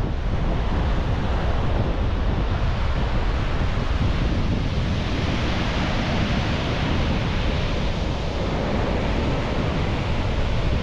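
Wind buffeting the microphone over a steady rushing noise, a low flickering rumble with no distinct events.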